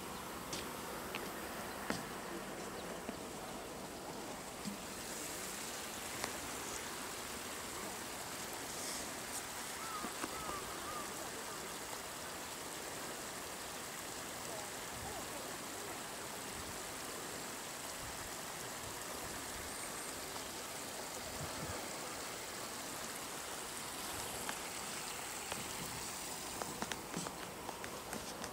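Steady rushing of flowing water from a garden pool or water feature, with a few faint clicks.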